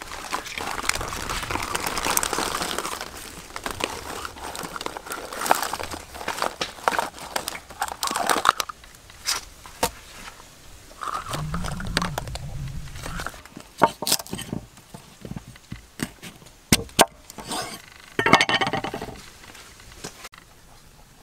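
Handling sounds of food being set out in a wicker basket: rustling and scraping with scattered clicks and clinks, as duck eggs are laid among fish and vegetables.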